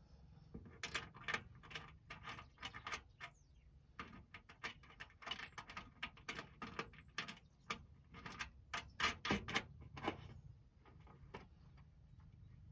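Small nuts being fitted by hand onto the bolts that join corrugated metal raised-bed panels: irregular light metallic clicks, ticks and scrapes, with the panel rattling now and then.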